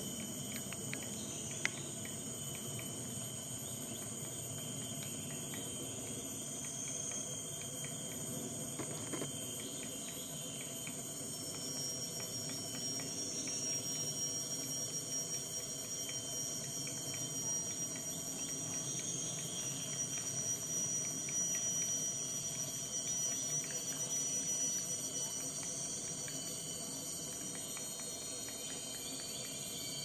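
Forest insects shrilling steadily on several high pitches, with scattered faint taps of an orange-backed woodpecker chiselling at a tree trunk, and one sharper knock about two seconds in.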